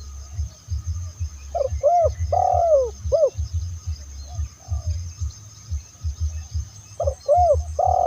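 Spotted dove cooing: a phrase of four arched coos about a second and a half in, and another phrase starting near the end. A low, fast throbbing pulse runs underneath.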